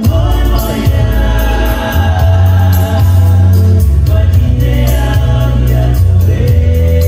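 A Polynesian dance song sung by a group in chorus over strummed guitar and a heavy bass line, with a steady beat. The full band and voices come in loudly right at the start.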